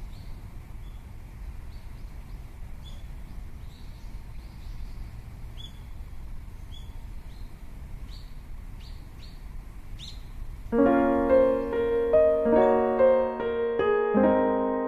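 Birds chirping in short scattered calls over a steady low outdoor rumble; about ten seconds in, gentle piano background music starts and takes over.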